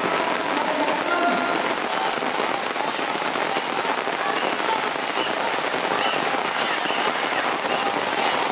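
Heavy rain falling steadily on the river and its banks, a dense even hiss with no breaks.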